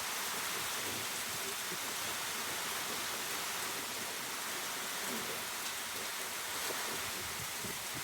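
Rain falling in a steady, even hiss during a storm.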